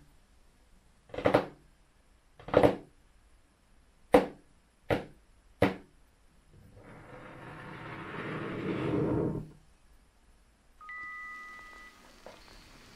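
Fingertips and nails tapping on a hard desk surface: about five separate taps over the first six seconds. A longer rush of noise then swells and fades over about three seconds, and a brief steady electronic tone sounds a little before the end.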